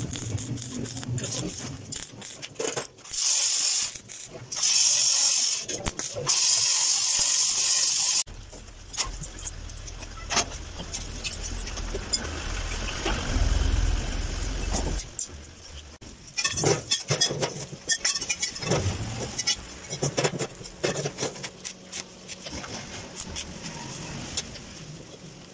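Stick-welding arc crackling and hissing in several bursts of a few seconds each over the first eight seconds. After that a low hum and scattered sharp clinks and knocks of steel pieces being handled.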